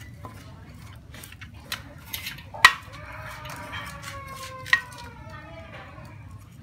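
Metal tools clicking and scraping in a stainless steel tray while cleaning snakes, with a few sharp clinks, the loudest about two and a half seconds in and another near five seconds, each leaving the tray ringing briefly.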